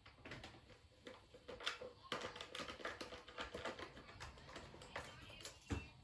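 Irregular light clicks and taps of hard parts being handled, several a second, with a heavier knock near the end.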